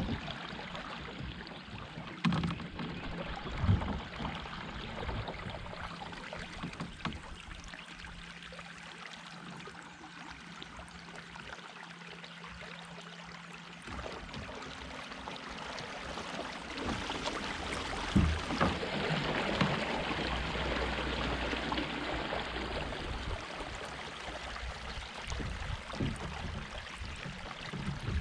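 Small fishing boat under way on the lake: a steady motor hum with water and wind rushing past, getting louder about halfway through.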